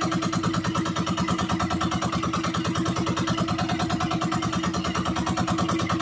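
Motorized outrigger boat's engine running steadily while underway, a fast, even pulsing hum with no change in speed.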